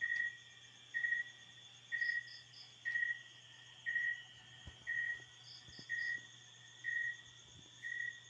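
Insect chirping: a short chirp about once a second, steady and even, over a faint continuous high trill, with a couple of quick triple peeps higher up.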